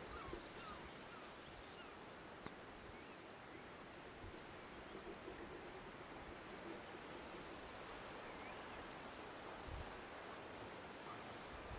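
Faint, scattered seabird calls over a steady outdoor hiss of wind and sea.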